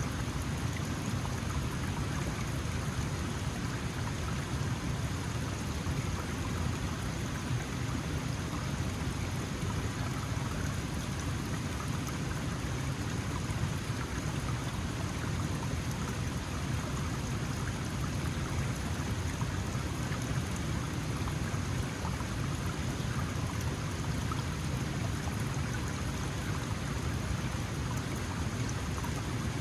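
Small mountain stream running steadily over rocks, a constant rush and burble of water.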